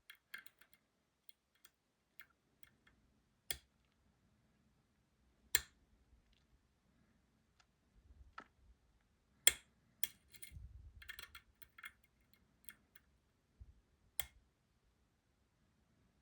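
Lock pick and tension tool working the pins of a Robur 2391 dimple lock: sparse, small, sharp metallic clicks and ticks, four of them louder, with some faint handling noise.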